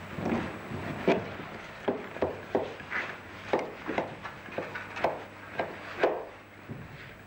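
A sculptor's blade carving and scraping a block of setting plaster in short, irregular strokes about twice a second, over a steady low hum.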